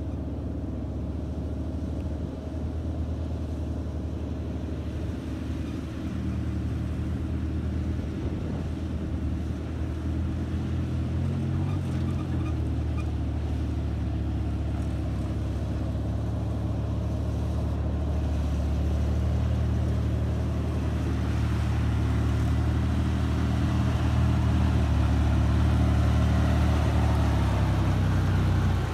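SUV engine pulling under load up a steep dirt climb, a steady low note that grows louder as the vehicle approaches. The revs rise briefly about twelve seconds in.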